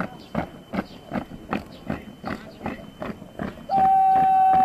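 A squad's boots striking the parade ground in step while marching, about two and a half footfalls a second. Near the end, a loud, long, held high-pitched shouted drill command.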